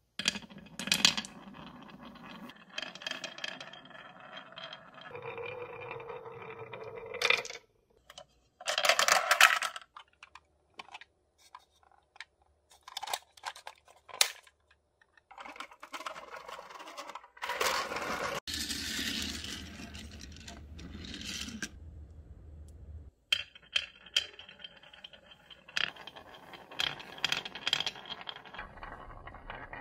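Marbles rolling along grooved wooden track pieces, with stretches of rolling broken by sharp clicks and clacks as they knock against the wood and each other.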